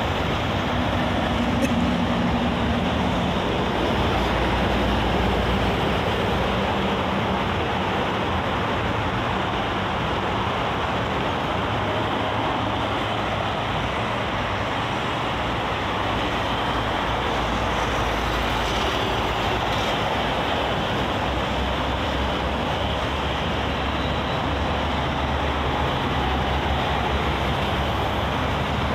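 Steady expressway traffic: cars, vans and trucks passing at speed, a continuous wash of tyre and engine noise.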